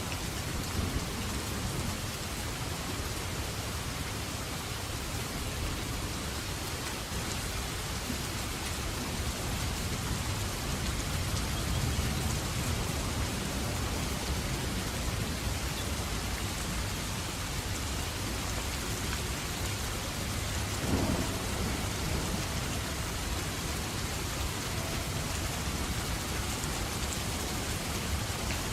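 Steady rain with thunder. A low rumble swells about twelve seconds in, and a brief sharp crack comes about twenty-one seconds in.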